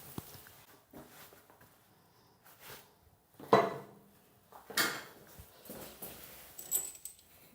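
Small plumbing parts being handled: a few short, scattered knocks, clicks and rustles, with quiet stretches between them.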